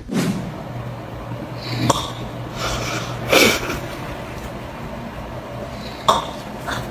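A sleeping person snorting in a few short, noisy bursts, the loudest about three and a half seconds in, over a steady low hum.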